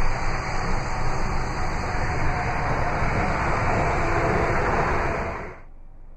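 Steady rushing noise of wind and road traffic, with a fluttering low rumble, which cuts off suddenly about five and a half seconds in, leaving only a faint steady background.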